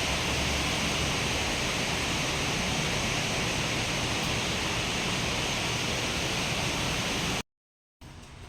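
Steady heavy rain, an even hiss, that cuts off abruptly about seven seconds in, followed by a moment of dead silence and then a faint quiet background.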